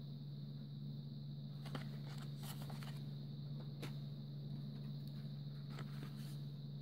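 A steady low hum with a faint high whine underneath a few soft clicks and rustles from hands handling lighter blister packs, plastic on card.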